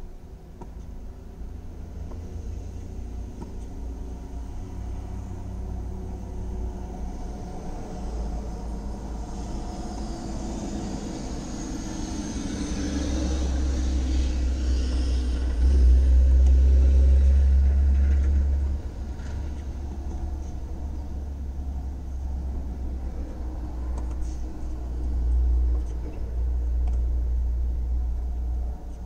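Steady low rumble, loudest about halfway through, heard from inside a car, with the sound of a vehicle passing that swells and falls in pitch over several seconds in the first half. A few faint knocks in the second half.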